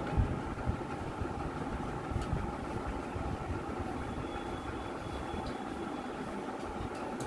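Steady low mechanical rumble, like an idling engine, with a couple of faint clicks.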